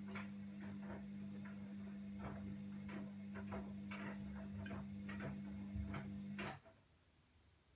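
Washing machine running: a steady motor hum with irregular light clicks and knocks as the drum turns. The hum and clicking cut off suddenly near the end as the drum stops.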